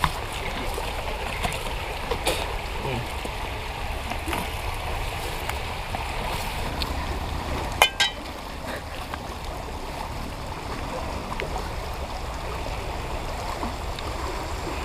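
Steady rushing of river water in light drizzle, under a low rumble, with scattered small ticks. About eight seconds in comes one sharp, briefly ringing clink.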